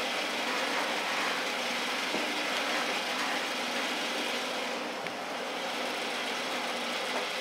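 Bandsaw running free, not cutting: a steady motor hum under the whir of the moving blade.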